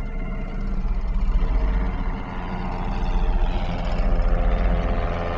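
A sailboat's inboard engine runs steadily under way with a low, even drone. From about halfway in, a higher drone of an aircraft taking off from a nearby airstrip grows in over it.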